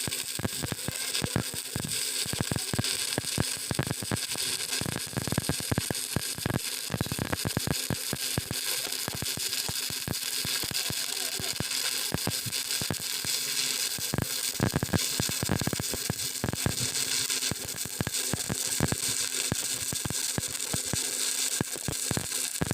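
Stick-welding arc from a 6013 electrode crackling and sizzling steadily, with dense irregular pops, over a faint steady hum.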